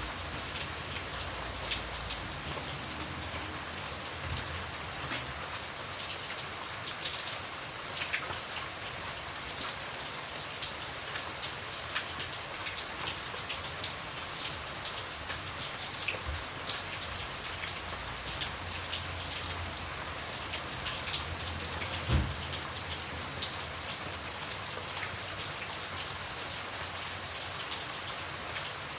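Light, steady rain falling, with many individual drops ticking on a surface over the even hiss. About three quarters of the way in there is one short, louder low thud.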